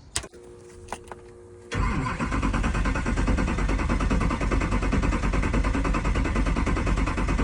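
LBZ Duramax 6.6 L V8 diesel being cranked over by a newly installed starter: a key click and a faint steady tone, then about two seconds in the starter engages and the engine turns over with a fast, even chugging that keeps going.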